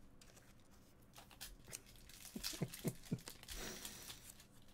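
Trading card packs and cards being handled: faint crinkling of foil wrappers and the rustle of cards, with three soft taps a little past halfway.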